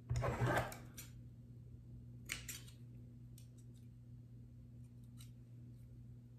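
Scissors snipping the tag ends of braided and fluorocarbon fishing line at a fresh knot: a short burst of noise at the very start, a snip about two seconds in, then a few faint clicks of the blades. A steady low hum lies underneath.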